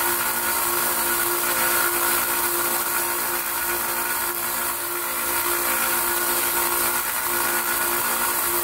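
Harbor Freight 1x30 belt sander running steadily, a constant motor hum and belt hiss.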